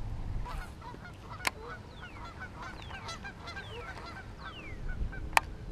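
Birds calling: a rapid string of short calls, with a few higher calls sliding downward among them. Two sharp clicks cut through, the louder one near the end.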